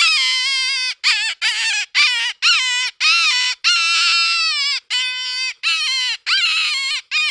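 A rabbit squealing: a run of about a dozen short, high, wavering cries in quick succession.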